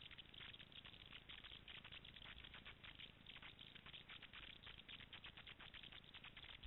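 Faint crackling: many quick, irregular ticks, barely above near silence.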